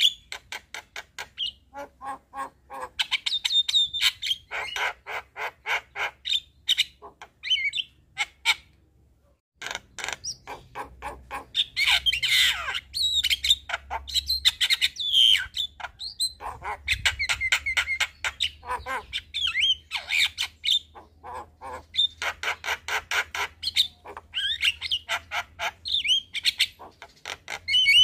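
Javan myna singing: fast chattering trains of repeated harsh notes mixed with whistled slurs, broken by a brief pause about nine seconds in.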